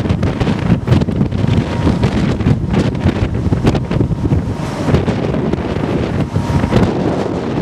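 Gusty wind buffeting the microphone: a loud, steady low rumble broken by rushing gusts.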